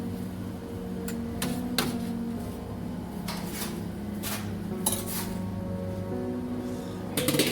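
Clinks and knocks of kitchen utensils against cookware, a few separate strikes with a quick cluster near the end, over steady background music.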